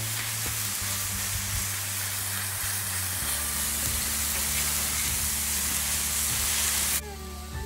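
Breakfast sausage sizzling on a hot flat-top griddle, a steady frying hiss with a few spatula scrapes against the steel; the sizzle cuts off suddenly near the end. Background music plays underneath.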